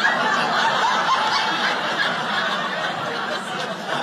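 A theatre audience laughing together, a full wave of laughter that gradually dies down.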